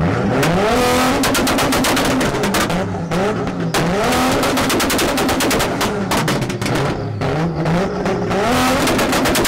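Tuned car engine revved up against a two-step launch limiter three times, each time holding at the limiter with rapid exhaust pops and bangs.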